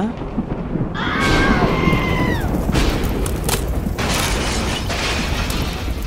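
A loud, low, rumbling boom, with a falling whistle-like tone about a second in and a few sharp knocks in the middle.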